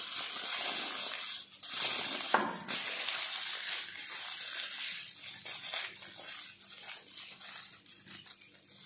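Aluminium foil crinkling and crumpling as it is folded and rolled tightly around a fish. Dense crackling for the first five seconds or so, then sparser, quieter crackles.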